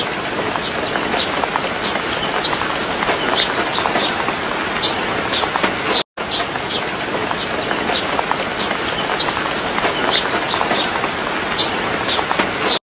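Small birds chirping: short high chirps in quick clusters over a steady hiss like rain. The sound drops out for an instant about six seconds in.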